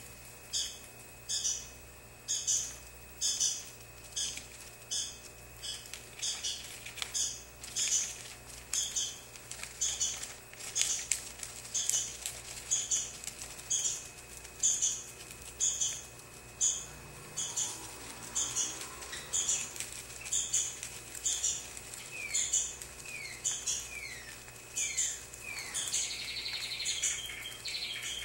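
A small bird chirping steadily, one short high call roughly every half second, with a few quick falling notes and a denser run of chatter near the end.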